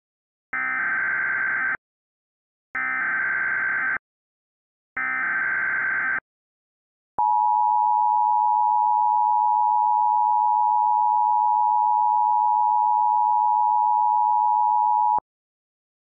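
Emergency Alert System SAME header, generated in software: three bursts of warbling data tones, each just over a second long, followed by the two-tone EAS attention signal held steady for about eight seconds and cutting off suddenly. Together they mark the start of an emergency alert activation.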